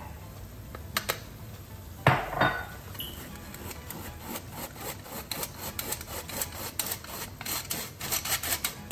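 Flour being sifted through a mesh sieve over the pan. A knock comes about two seconds in, then from about three seconds on a quick run of taps and rasping as the sieve is shaken.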